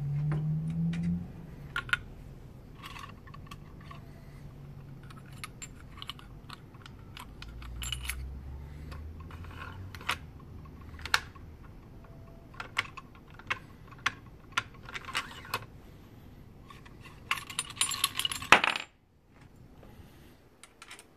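Scattered metallic clicks and clinks of a .300 Win Mag bolt-action rifle's bolt being worked with a resized brass case, as the case is tried in the chamber to check the sizing die's setting. A denser run of clinks near the end cuts off suddenly.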